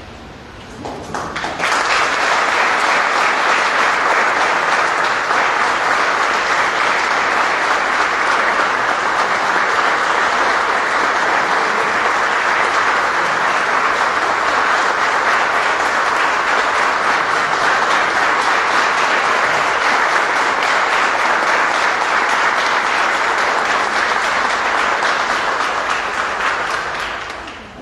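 Audience applauding steadily, beginning about a second and a half in and dying away near the end.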